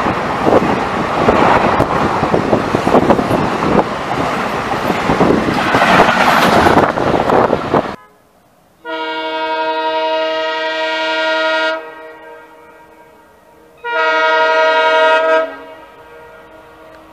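An Indian Railways express train passing at speed, a loud rumble of coaches with wheel clatter. It then cuts to an approaching locomotive sounding its multi-tone horn twice: a long blast of about three seconds and a shorter one of about a second and a half.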